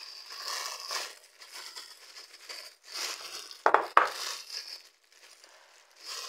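A plastic bag worn over a hand crinkles as it kneads a stiff minced-meat kofta mixture in a bowl. Two sharp knocks come close together a little past halfway.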